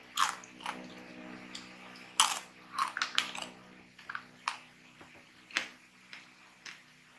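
Crunchy coated mixed nuts (Ding Dong coated peanuts and corn kernels) crunching: about eight sharp crunches at uneven spacing, the loudest two to three and a half seconds in, then fewer and fainter.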